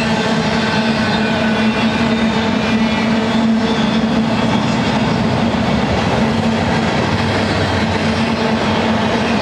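Double-stack intermodal freight cars loaded with containers rolling past: a steady rumble of steel wheels on rail, with a constant low tone running underneath.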